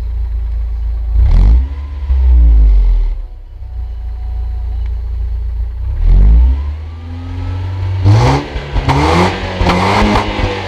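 BMW E46 318's four-cylinder engine, heard at its twin-tip exhaust. It idles, with a short rev about a second in and another around six seconds, then a run of quick throttle blips near the end.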